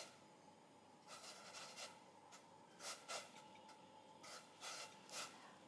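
Near silence with faint, scattered rubbing and scraping sounds of kitchen handling.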